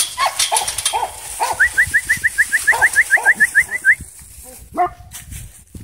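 Small dog yipping several short times, with a quick run of high, rising chirps about six a second over the middle of it.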